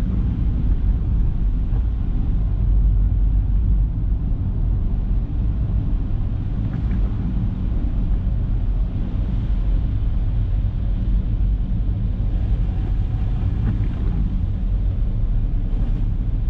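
Car driving on a rain-wet road: a steady low rumble of engine and tyre noise.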